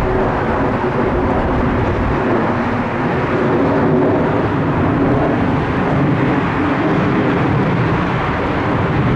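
Jet noise from a Mitsubishi (Bombardier) CRJ-900's two rear-mounted General Electric CF34 turbofans in the climb after takeoff: a loud, steady roar with a humming tone that drifts slowly lower as the jet moves away.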